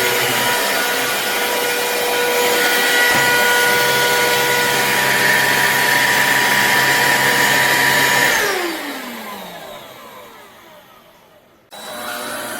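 Black+Decker POWERSERIES+ 20V MAX cordless stick vacuum's motor running with a steady whine. About eight seconds in it shuts off and winds down, falling in pitch over a few seconds. Near the end it starts again abruptly.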